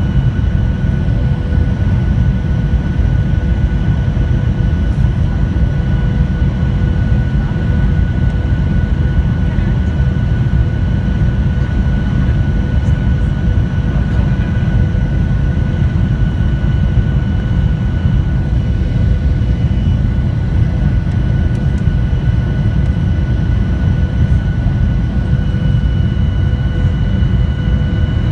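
Steady cabin noise of a Boeing 737-900ER in flight on its descent, heard from a window seat over the wing: a deep, even rumble of engines and airflow with a few faint steady whines running through it. The highest whine grows stronger near the end.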